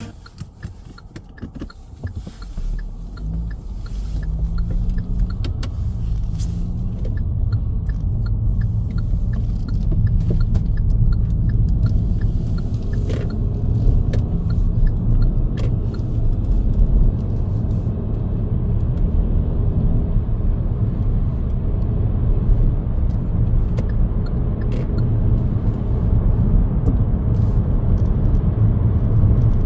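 A car being driven: low engine and road rumble that builds over the first few seconds as it picks up speed, then holds steady, with a few light ticks early on.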